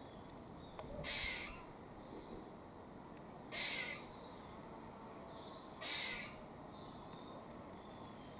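Grey squirrel giving a harsh, raspy alarm call three times, roughly every two and a half seconds: a warning call.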